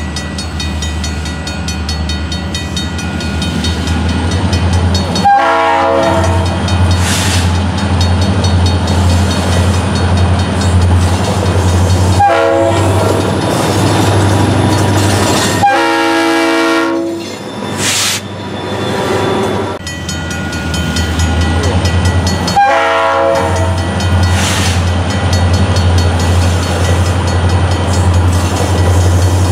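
EMD diesel freight locomotives (SD40-2s and a GP38-2) running past with a steady low engine drone. A multi-note locomotive horn sounds about four blasts of one to two seconds each, the third a little longer.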